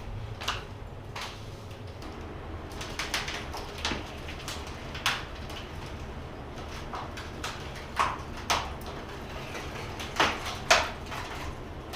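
Scattered knocks, scrapes and short creaks from demolition work as a heavy piece of wall material is handled and worked loose, over a steady low hum.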